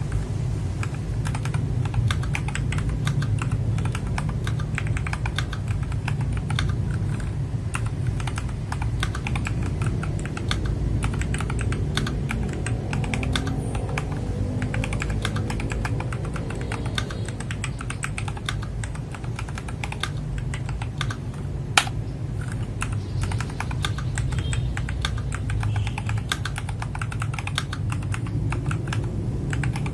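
Continuous typing on an FL-Esports MK870 mechanical keyboard fitted with Kailh Box Brown tactile switches: a rapid, unbroken run of key clacks as a sound test of the build, with one sharper, louder click about two-thirds through, over a low steady hum.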